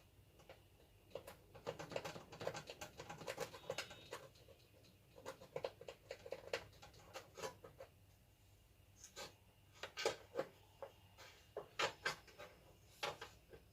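Irregular rubbing and scraping strokes as a spot on an LED TV's backlight strip is cleaned by hand, in quick clusters with a few sharper strokes in the second half.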